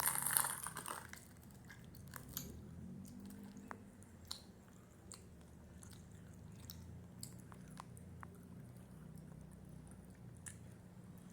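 Someone chewing gummy candies close to the microphone: faint, scattered wet mouth clicks and smacks. A short loud burst of noise opens it.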